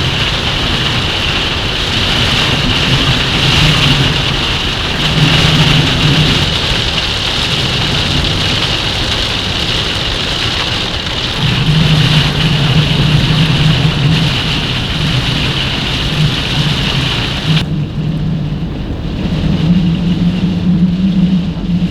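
Gale-force wind buffeting a truck camper, heard from inside: a continuous rushing noise with a low moaning tone that comes and goes in gusts. About 18 seconds in, the high hiss cuts off abruptly while the low gusting carries on.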